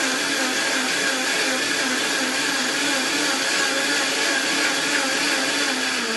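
Vitamix blender motor running steadily as it blends warm milk with a date and spices, a loud, even whir whose pitch starts to fall near the end as the motor winds down.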